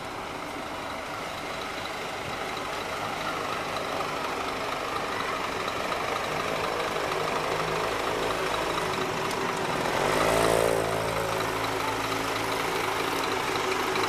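A small motorcycle engine draws near and passes close by, loudest about ten seconds in, over a steady engine hum.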